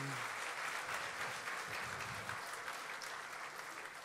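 Audience applauding, fading gradually toward the end.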